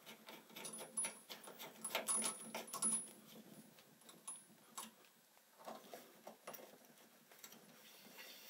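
Brass hose coupling being threaded onto a boiler drain valve: scattered small metallic clicks and the jingle of the valve cap's chain, busiest in the first three seconds.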